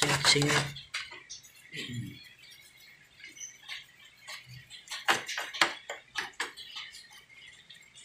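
Small stiff brush scrubbing a motorcycle engine's casing wet with an oxalic acid and dish-soap degreaser: a loud scrubbing burst at the start, then scattered scratchy strokes, with a quicker run of strokes about five seconds in.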